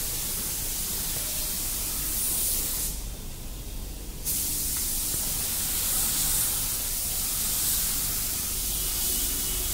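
Compressed-air paint spray gun hissing steadily as it sprays plastic primer onto a car body. The hiss eases briefly about three seconds in.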